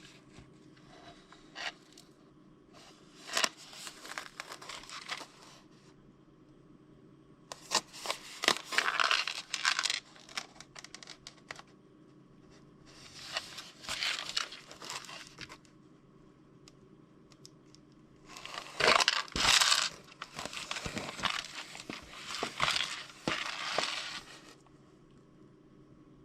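Plastic packaging of a Peyoung cup yakisoba being torn open and crinkled, in several separate bouts of tearing and rustling with short pauses between them.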